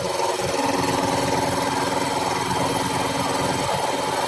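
Air compressor running: a new 5 hp, 3450 rpm electric motor driving a three-cylinder pump, giving a steady hum with a fast even pulsing underneath.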